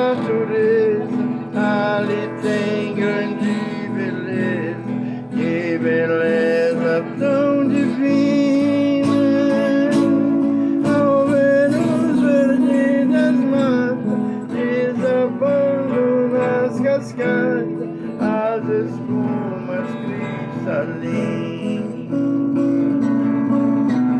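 Music: a song accompanied by plucked and strummed acoustic guitar, playing on without a break.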